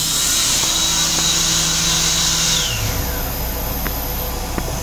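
Vacuum toilet in a railcar restroom flushing: a loud hiss with a high motor whine that holds, then winds down about two and a half seconds in. The train's steady low rumble continues underneath.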